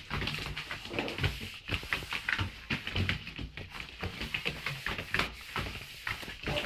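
Two Welsh springer spaniel puppies growling and scuffling as they play-fight with a broom, with short irregular grunts and quick scrabbles and knocks of paws and broom against the wooden floor.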